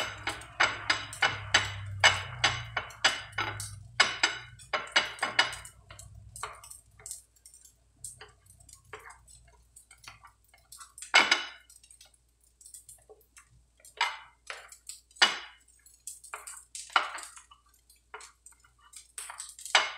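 Eggs being beaten in a bowl with an eating utensil: quick, regular clicks of the utensil against the bowl, about three a second, for the first six seconds, then scattered, louder single clinks.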